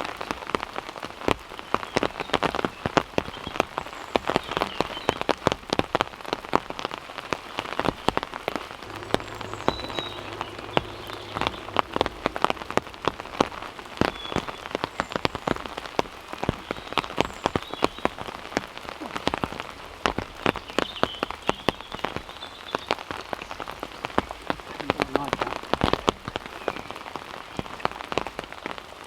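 Heavy rain falling, a dense, irregular patter of drops striking close by over a steady hiss.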